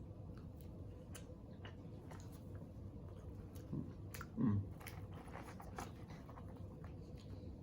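Close-miked chewing of French fries: soft crunches and wet mouth clicks scattered throughout. About four and a half seconds in there is one short, louder, low vocal sound from the eater.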